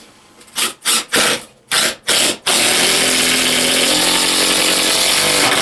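Cordless drill driving a screw down through a shower platform board into a floor joist: a few short trigger bursts to start the screw, then a steady run of about three seconds driving it home.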